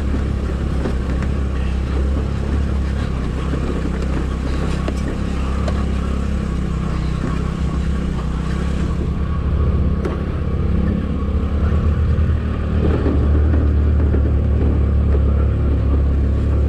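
Motor scooter engine running under load, pulling up a steep climb. It grows louder about two-thirds of the way through.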